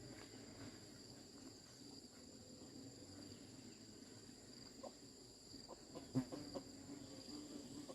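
Faint steady high-pitched insect chirring, with two unbroken tones throughout. A few soft knocks come about five to six and a half seconds in, the loudest just after six seconds.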